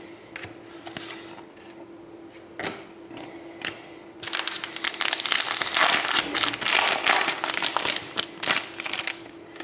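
Hockey trading cards and their packaging being handled: scattered clicks and rustles at first, then about five seconds of dense crinkling from about four seconds in. A faint steady hum runs underneath.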